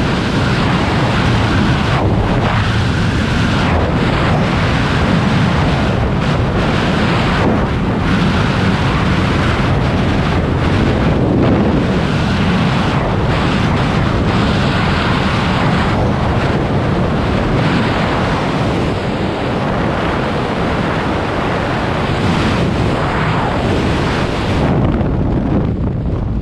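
Freefall wind rushing loudly and steadily over a skydiver's camera mic. Near the end the highest hiss falls away.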